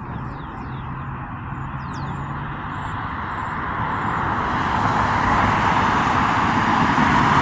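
Outdoor road-traffic noise swelling steadily louder, like a vehicle approaching, over a low steady hum. A few faint high bird chirps come in the first half.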